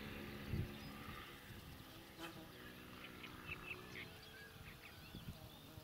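Distant outboard motor of a small boat running steadily as a faint drone, with short bird calls chirping over it. A low thump comes about half a second in.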